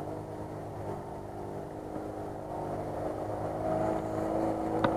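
Off-road vehicle engine running steadily, getting a little louder over the last couple of seconds, with a single sharp click near the end.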